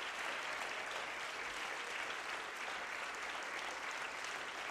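Congregation applauding steadily, many hands clapping together in an even wash of sound.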